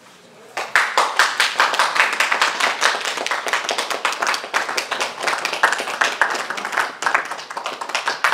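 Audience applauding, starting about half a second in and continuing as dense hand-clapping.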